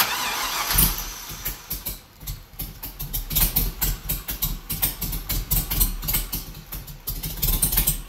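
GM 5.3-litre LS-based V8 on its first startup: the starter cranks briefly, the engine catches about a second in and then runs unevenly.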